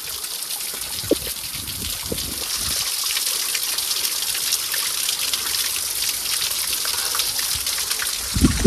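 Small waterfall splashing and spattering onto rocks, a steady hissing patter of falling water that grows louder about three seconds in.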